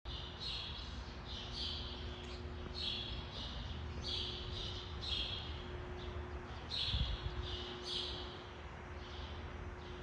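A small bird chirping over and over, mostly in quick pairs about once a second, over a faint steady hum, with one low thump about seven seconds in.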